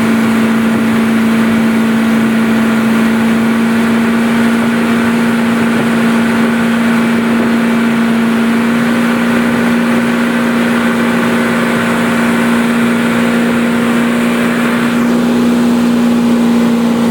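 An engine running steadily at a constant speed, holding one unchanging pitch.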